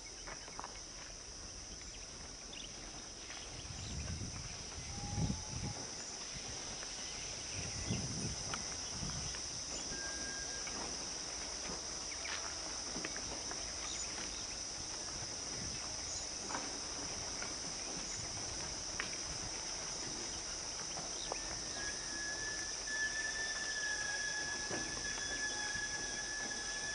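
Steady, high-pitched drone of insects in the forest, with a few brief whistles and a longer steady whistle in the last few seconds. Two short low rumbles come about four and eight seconds in.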